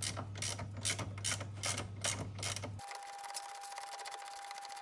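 Screwdriver scraping and clicking against the plastic and metal at the back of a steering wheel, in short strokes about two or three a second. About three seconds in the sound changes abruptly to a faint steady tone with rapid light ticking.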